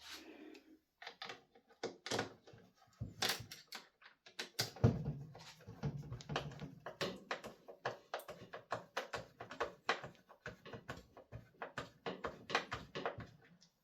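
T-handle tool driving the bottom cover bolt into a leaf blower's plastic housing: a run of short, sharp clicks, sparse at first and then coming steadily, about two or three a second, with a few heavier knocks in the first half.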